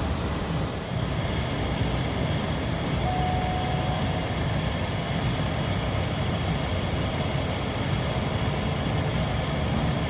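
Cabin noise of a Cessna 208B Grand Caravan EX's single Pratt & Whitney PT6A-140 turboprop running steadily as the plane taxis. A brief thin tone sounds about three seconds in.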